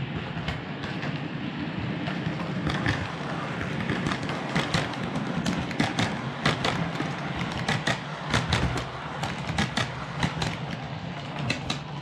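OO gauge model train, an LNER Azuma, running past on the track: a steady low hum of the running trains with a rapid, irregular clicking of wheels over rail joints that grows thickest as it passes close by.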